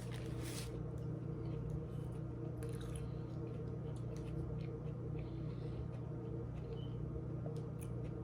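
Chewing and soft wet mouth clicks of someone eating a sandwich, over a steady low hum.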